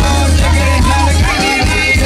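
Live band dance music with a strong, steady bass line and a melody line above it, played loud.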